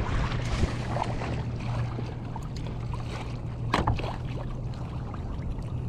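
Water splashing and lapping against a kayak hull as it moves, over a steady low hum, with one sharp knock about four seconds in.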